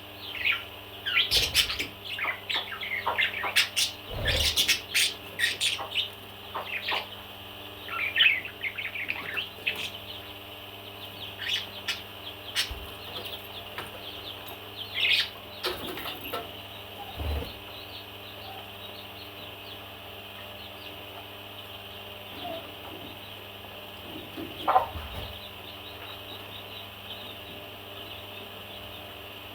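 A pet parrot chirping and squawking in a quick string of short calls, thinning out after about fifteen seconds to a few scattered calls. A few soft low thumps sound among the calls.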